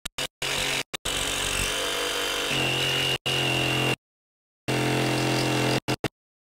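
DeWalt jigsaw with a Diablo scroll-cut blade running and cutting through a 3/4-inch wooden board. It goes in several spells that stop and start abruptly, with a steady whine in the later spells.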